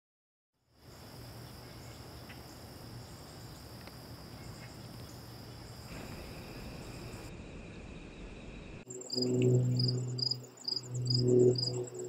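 Crickets and other insects singing in summer woodland. After a second of silence there is a steady high-pitched buzz, then a high chirp repeating about twice a second over a continuous higher trill. A low hum swells twice in the last few seconds.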